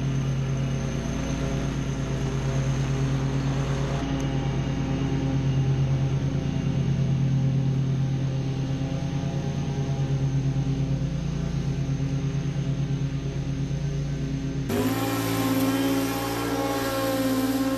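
Stand-on zero-turn mower's engine running steadily while mowing, passing close by. About 15 seconds in it cuts to background music.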